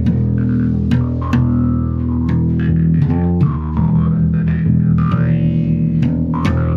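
Jaw harp (vargan) twanging over a sustained electric bass drone, its mouth-shaped resonance gliding up and down, with sharp plucks of the harp's tongue now and then.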